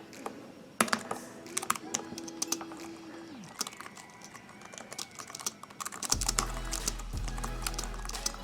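Typing on an Anker ultra-compact Bluetooth keyboard: a quick, irregular run of light key clicks.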